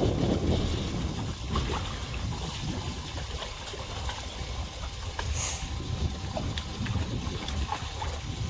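Wind rumbling on the microphone over water lapping and sloshing against the pier pilings, with a few faint ticks.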